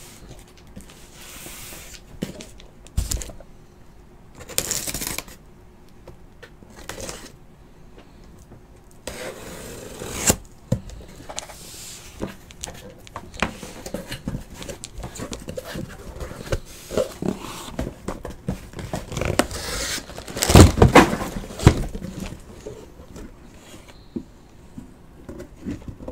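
Cardboard and plastic packaging of a trading-card case being torn, scraped and handled in irregular bursts, with a loud burst of knocks and rustling about twenty seconds in.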